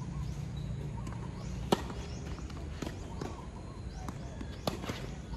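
Tennis rally on a hard court: sharp pops of racket strings striking the ball, the loudest about a second and a half in and another strong one near the end, with quieter hits and ball bounces in between.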